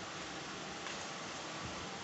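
Steady, even background hiss with no distinct sounds in it.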